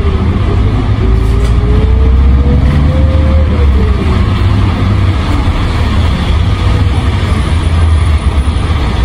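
Isuzu Erga city bus (2KG-LV290N3) standing with its four-cylinder diesel engine idling: a steady low rumble, with a fainter tone drifting slowly up and down in pitch over the first few seconds.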